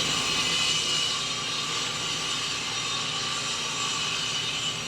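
A 1920s cast-iron Boice-Crane table saw running with a steady whine.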